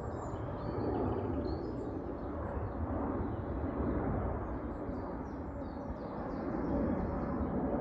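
Aeroplane passing overhead on an airport flight path: a steady distant rumble, with small birds chirping faintly.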